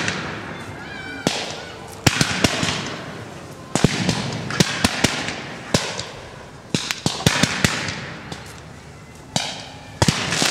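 Firecrackers going off: sharp bangs, singly and in quick clusters every second or two, with a hissing crackle trailing after each burst.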